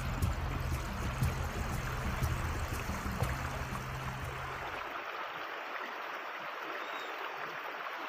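Shallow rocky stream running and trickling steadily. A low hum underneath cuts off about five seconds in.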